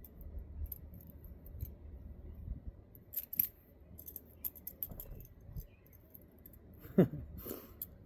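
Smith & Wesson steel handcuffs being handled and fitted on the wrists: scattered small metallic clicks and clinks, with two louder sharp knocks, one about three seconds in and one near the end.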